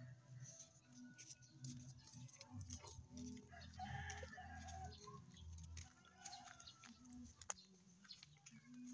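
Faint chickens clucking and a rooster crowing.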